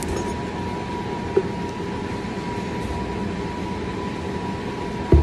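Steady kitchen room hum with a faint constant high tone, a light tap about a second and a half in, and a knock near the end.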